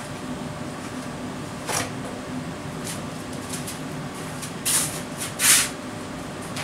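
Steady low hum with a few short scuffs as a person moves about; the two loudest scuffs come a little past the middle.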